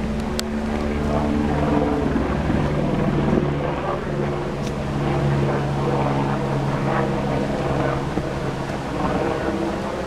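An engine running with a steady hum; its pitch shifts about two seconds in and then holds steady.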